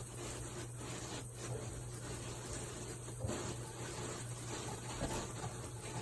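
Shower water running steadily, a continuous hiss of spray with a low hum underneath.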